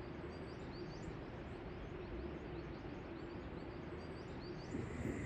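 Outdoor ambience: a steady low rush with small birds chirping over and over. Near the end a steady higher hum comes in.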